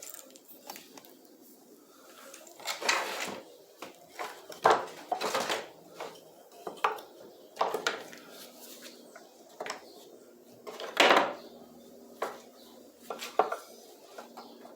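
Irregular knocks and clatter of wooden parts and hand tools being handled on a workbench, with a few short scraping sounds.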